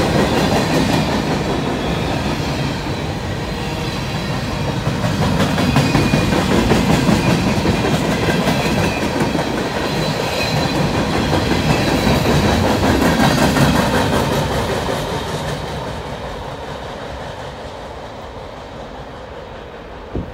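Empty centerbeam flatcars of a freight train rolling past, steel wheels running over the rails with a loud rumble that swells and dips. Over the last few seconds it fades as the end of the train passes and moves away.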